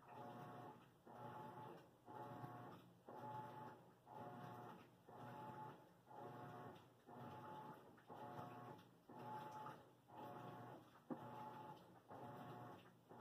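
A faint machine running with a regular pulsing whine, about three strokes every two seconds, and one sharp tick about eleven seconds in.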